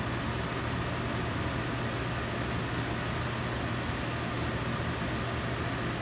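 Century 21 CYP-1013S portable air conditioner running: a steady rush of fan air with a constant low hum.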